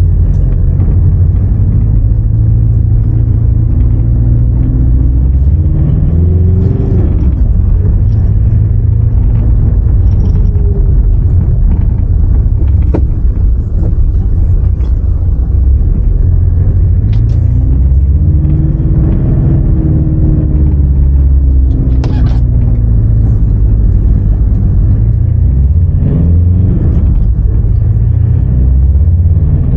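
Mitsubishi L200 pickup's 2.5-litre diesel engine running as the truck is driven, with a steady low rumble and the engine note rising and falling a few times as it speeds up and eases off.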